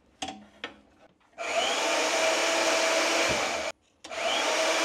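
A couple of light metal clinks, then an electric bench-top shop tool motor starts up and runs with an even whirring rush and a steady hum. It cuts out abruptly near the end and starts up again.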